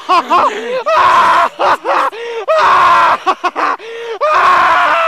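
A man laughing hard, in high-pitched, rapid peals with breathy stretches between them.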